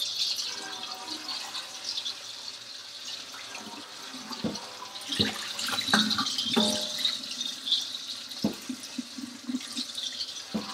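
Kitchen tap running into the sink as a large pan is rinsed out, with a few sharp knocks of the pan being handled in the sink partway through.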